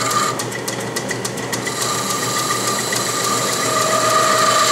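South Bend 10-inch Heavy lathe running at about 1400 RPM while a round-nose tool takes a hand-fed taper cut, the tool chattering with a steady high ringing tone. The tone fades about a third of a second in, while a quick run of ticks is heard, and comes back from about two seconds on.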